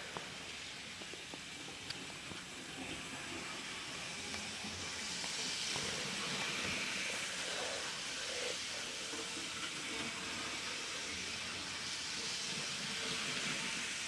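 Model electric train running around its track: a steady hissing whir of the small motor and wheels on the rails. It grows louder about five seconds in and again near the end.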